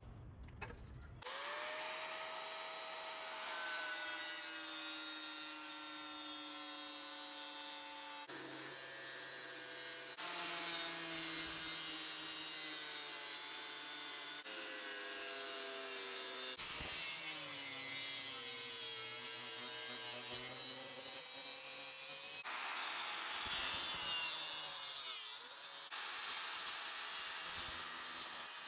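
Electric power tool working the steel of an old concrete saw blade: a steady motor-and-cutting noise whose pitch slowly sags and recovers under load. It stops and restarts abruptly several times.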